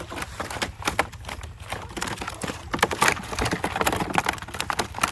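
Irregular quick knocks and slaps of live fish flapping while being handled.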